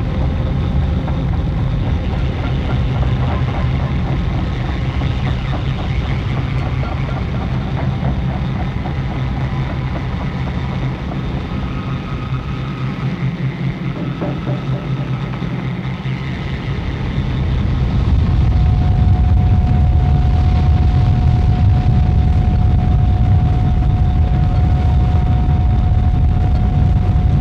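Lo-fi experimental drone music: a dense, low, continuous drone layered with faint wavering tones. About eighteen seconds in it swells louder and a single steady high tone comes in and holds.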